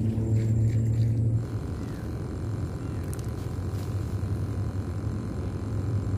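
A steady low rumble, louder for the first second or so, then continuing at a lower level.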